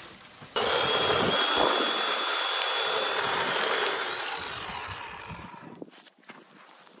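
Greenworks battery-powered electric chainsaw starting suddenly and cutting through a small mesquite trunk at its base, a steady high motor whine over the chain noise. After about three seconds it dies away over the next two.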